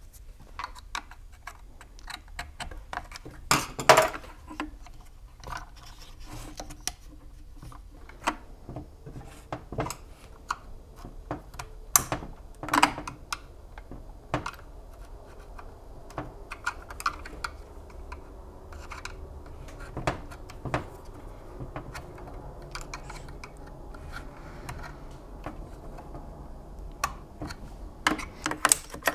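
Hands fitting the plastic carburetor and intake parts back onto a Husqvarna 550 XP chainsaw: scattered small clicks, taps and scrapes of plastic parts, with a few louder knocks spread through.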